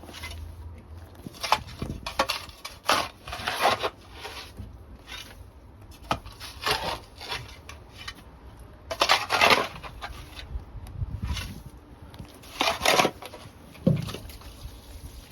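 A series of irregular scraping, crunching strokes, each about half a second long and coming a second or several apart.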